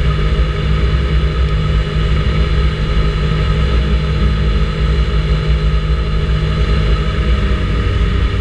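Vespa GTS 300 ie scooter's single-cylinder four-stroke engine running at a steady cruising speed on the move, with wind rumble on the microphone.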